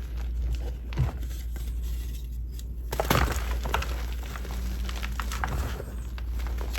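Gym chalk being crushed: a single crunch about a second in, a louder crunch about three seconds in, then a couple of seconds of crumbling crackles, over a steady low hum.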